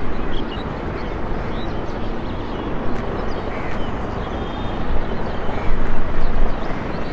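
Formation of a dozen or so military helicopters flying past, their rotors and turbines merging into one steady, dense din that swells briefly about six seconds in.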